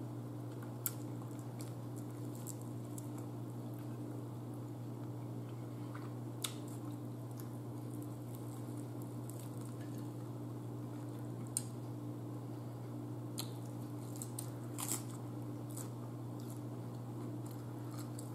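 Close-up eating sounds of a person chewing chicken wings: scattered wet smacks and clicks of the mouth and fingers, over a steady low hum.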